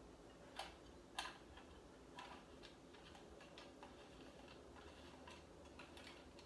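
Near silence with faint, irregular clicks and ticks of a brass lamp socket being worked apart by hand; the two clearest clicks come about half a second and a second in.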